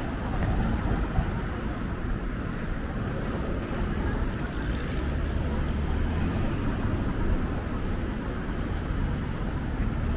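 City street traffic: a steady hum of passing vehicles, with a deeper engine rumble strongest about five seconds in.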